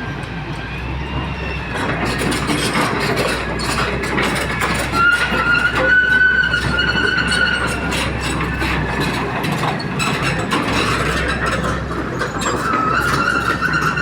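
Heavy excavator at work: its diesel engine runs under a steady mechanical din with repeated metallic clanks. A high steel-on-steel squeal comes twice, in the middle and near the end.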